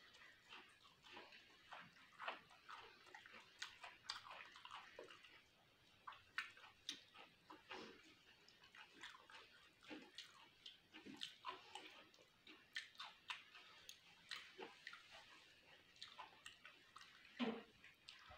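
A person chewing and lip-smacking while eating curry and rice by hand, picked up close. Irregular wet clicks and smacks, with one louder smack near the end.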